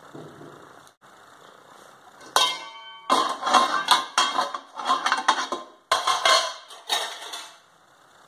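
Stainless-steel pan lid handled over a pan of cooked rice: a sharp metallic clang that rings briefly, then two runs of loud, irregular clattering and scraping of metal kitchenware against the pan.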